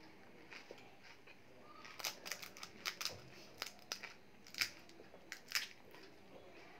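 Crisp, hollow golgappe (pani puri) shells crackling and clicking as they are picked up and handled by hand, a quick run of sharp crackles from about two seconds in.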